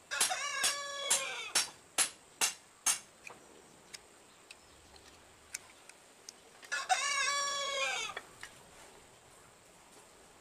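A rooster crowing twice, about six seconds apart, each crow about a second long and falling in pitch at its end. Over the first three seconds a run of sharp knocks comes about twice a second; these are the loudest sounds.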